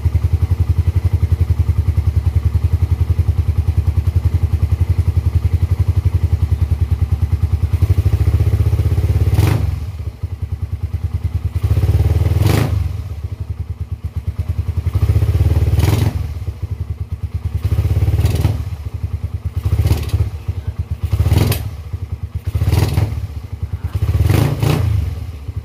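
Suzuki single-cylinder motorcycle engine with reground racing camshafts and readjusted cam timing, idling steadily, then blipped about seven times from about eight seconds in, each blip a short rise in revs that drops back to idle.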